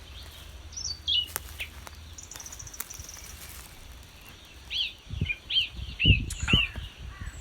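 Small woodland birds calling: a single falling call about a second in, a fast high trill a little later, then a run of short rising-and-falling chirps about twice a second in the second half. Low dull thumps come along with the last few chirps.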